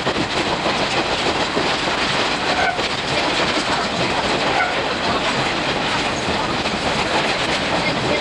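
Running noise of a train coach, a 50-series passenger car behind a steam locomotive: wheels on the rails and rapid clacking over the joints, played back at six times speed, making a dense, steady rush.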